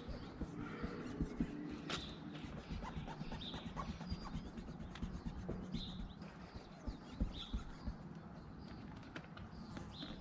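Birds chirping now and then in short calls, over low rustling and a few light clicks from handling.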